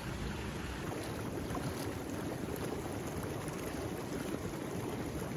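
Steady rushing and splashing of water in an outdoor thermal spa pool, with water jets pouring in and water lapping close to the microphone.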